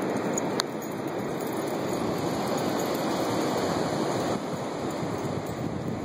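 Steady rushing of wind and surf on an open beach, with a brief click about half a second in.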